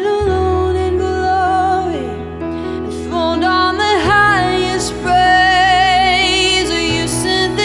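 Slow, gentle worship music: sustained chords over a low bass note that changes about every four seconds.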